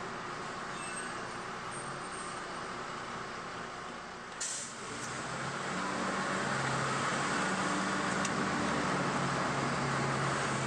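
Diesel engine and road noise of a 2002 MAN 12.223 city bus heard from the driver's seat as it moves through traffic. About four seconds in there is a brief hiss of air from the air brakes, then the engine note comes up louder and steadier as the bus pulls ahead.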